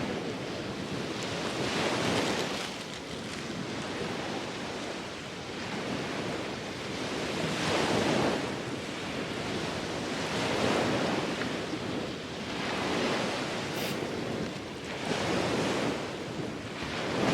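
Sea waves washing onto a beach, the surf swelling and fading every few seconds, with some wind buffeting the microphone.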